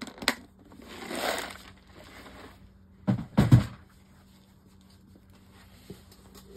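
Handling noises from off-camera bench work: a few light clicks, a short rustling crinkle about a second in, then a couple of dull thumps a little after three seconds.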